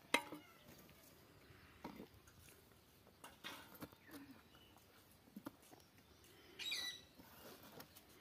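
Scattered faint knocks and scrapes as a bottle gourd is cut against a boti blade and set down on a woven basket, with a short bird call about six and a half seconds in.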